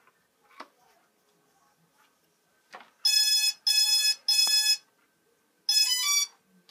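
IFLY4 quadcopter powering up: after a couple of faint clicks, three long electronic beeps at one pitch, then a quick stepped little tune, the startup tones of the quad's electronics.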